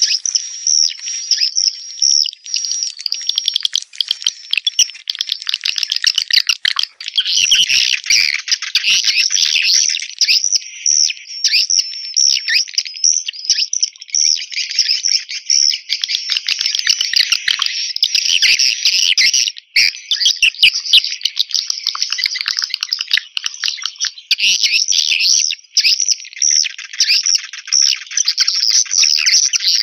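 Swiftlet lure call: a recording of edible-nest swiftlets twittering, a dense, continuous stream of rapid high chirps and trills, played to draw swiftlets into a bird house to nest.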